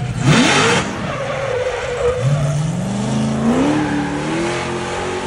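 Car engine revving hard with tyre squeal. A loud burst of noise comes in the first second, then the engine note climbs steadily.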